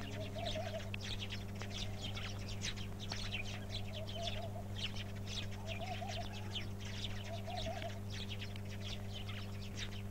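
Many small birds chirping and twittering in trees, with a lower warbling call repeating every second or so, over a steady electrical hum in the soundtrack.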